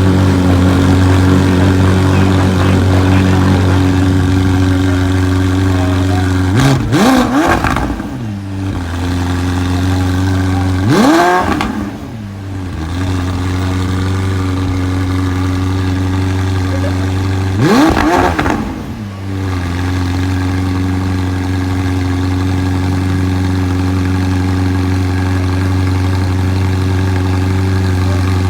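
McLaren Senna's twin-turbo V8 idling steadily, blipped three times with short revs that rise sharply and drop straight back to idle.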